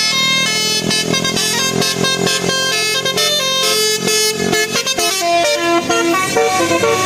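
Telolet Basuri musical horn on an Indonesian tour bus playing a fast melody, its notes stepping up and down several times a second.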